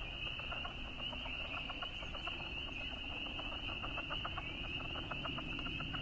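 Southern leopard frog chorus: many males giving rapid, staccato clucking calls, over a steady high-pitched peeping chorus of spring peepers in the background.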